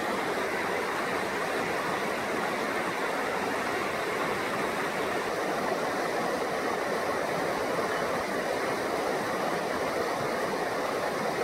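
Rushing stream: a steady, unbroken rush of running water.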